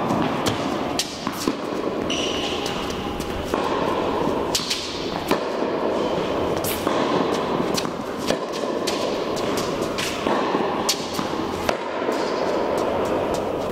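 Tennis balls struck by a racket and bouncing on an indoor hard court, a sharp crack every second or two, over a steady background noise. A brief high squeak comes about two seconds in.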